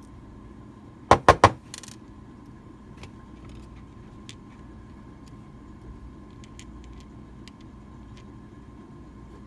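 Metal parts of a disassembled Medeco mortise lock cylinder clacking: three sharp knocks in quick succession about a second in, then scattered faint ticks as the small pins are handled and placed into a pin tray.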